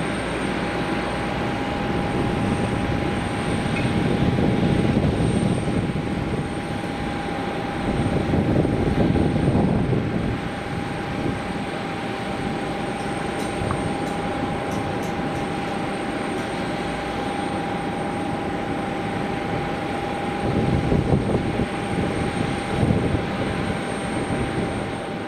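Steady jet whine from a parked Embraer regional jet: a held high tone over a broad rush. The low rumble swells a few times.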